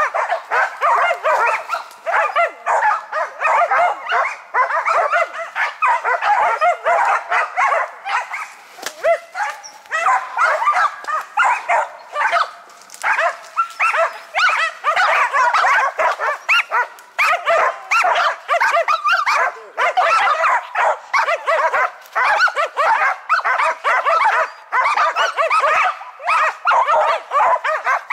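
Karelo-Finnish laikas (Finnish spitz hunting dogs) barking rapidly and without pause, several barks a second, with a short lull about halfway through. This is the hunting laikas' baying at a marten treed high in a spruce.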